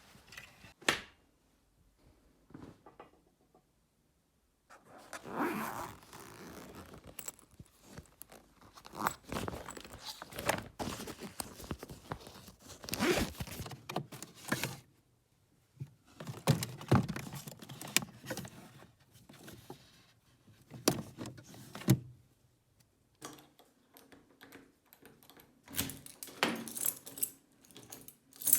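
Irregular everyday handling sounds: clinks, knocks and rustling as small objects are picked up and moved, with a near-silent pause a few seconds in.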